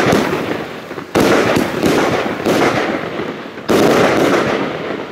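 25 mm, 25-shot fireworks battery firing white strobe-star shells: sharp reports about a second in, then at about two, two and a half and nearly four seconds, each followed by a long rushing tail that dies away. The sound fades out near the end as the battery fires its last shots.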